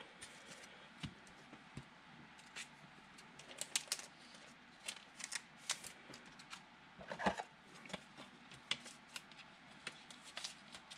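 Faint, scattered light clicks and rustles of small things being handled on a desk, with a sharper click about seven seconds in.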